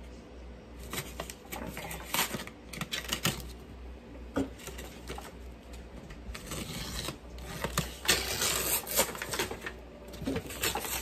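Single-edge razor blade slicing through paper wrapping and packing tape on a cardboard box, in irregular short scratchy strokes with paper crinkling and tearing.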